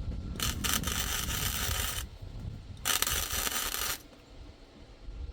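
MIG welder laying two short tack welds on a steel frame: a couple of brief arc strikes, then a steady arc crackle for about a second and a half, a pause, and a second tack of about a second.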